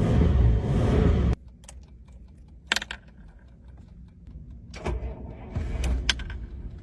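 A vintage car's engine rumbling, cut off abruptly about a second in, followed by scattered light clicks and rattles.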